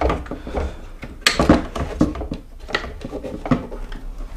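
Knocks and clatter of the plastic and metal body of a mobility scooter being handled, as its loose floor pan and frame are moved by hand; a sharp clack about a second and a half in is the loudest, with lighter knocks before and after.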